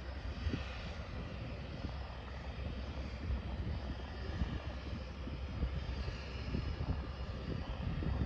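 Steady distant drone of a de Havilland Otter floatplane's engine running.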